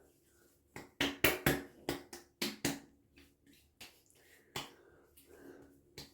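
Hands slapping and patting an aftershave splash onto a freshly shaved face: a run of about ten sharp, irregular slaps, thickest in the first few seconds.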